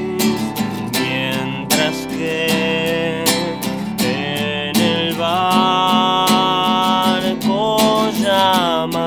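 Nylon-string classical guitar strummed steadily, with a man's voice singing long held notes over it in the second half.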